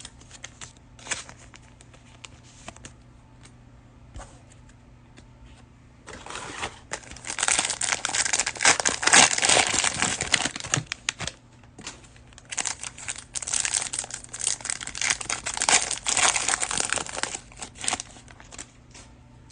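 Crinkling of a plastic cellophane trading-card pack wrapper as it is torn open and handled, in two long stretches. A few light clicks and taps come before it.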